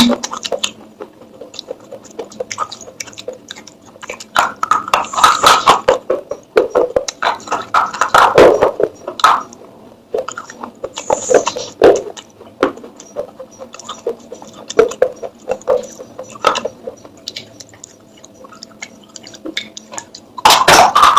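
Dry clay pottery crunching and crumbling: irregular sharp cracks and gritty bursts with short pauses between them.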